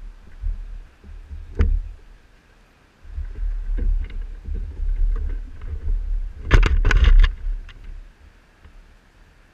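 Handling noise on an action camera: rubbing and knocks against the housing as someone works right at it, with low rumble on the microphone. There is a single sharp knock near the start and a loud flurry of knocks about two-thirds of the way through.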